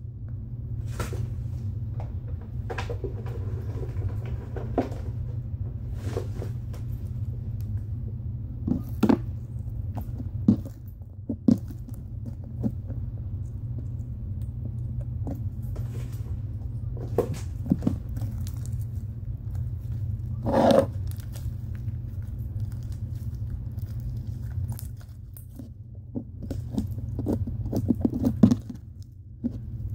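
Hands working slime and its plastic containers: scattered taps, clicks, scrapes and crackly squishing over a steady low hum.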